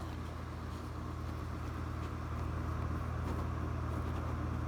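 Electric fan running in the room: a steady low hum with a faint hiss above it.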